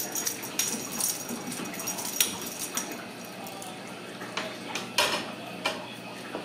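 Ragdoll kittens scampering and wrestling on a bare hardwood floor: claws and paws skittering and tapping in quick, irregular clicks, with sharper knocks about two seconds in and again about five seconds in.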